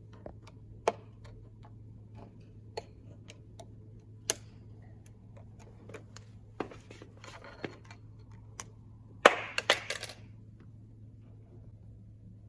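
Sharp plastic clicks and scraping as a thin pry tool works the display cover off an electric scooter's handlebar stem, with a quick run of louder snaps a little past nine seconds in as the cover comes loose. A steady low hum runs underneath.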